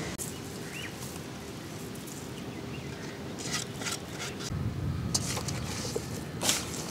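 Outdoor background with a steady low rumble that grows louder about halfway through, and scattered soft clicks and rustles from hands handling fish and vegetables in a steel bowl.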